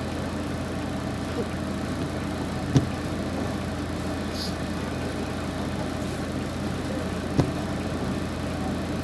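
Steady low drone of a vehicle driving along, with two sharp knocks, about three seconds in and again near the end.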